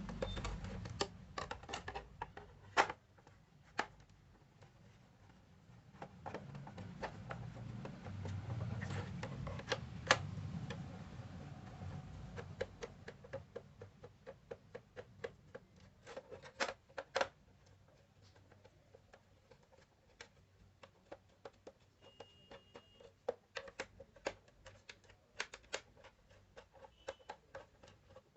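Irregular light clicks and taps of small hard parts being handled, getting denser near the end, with a low rumble of handling early on and again for several seconds in the middle.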